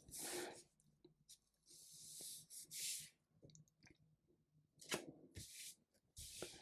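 Faint felt-tip marker strokes on paper: a handful of short, scratchy swishes, each under a second, spread through the stretch.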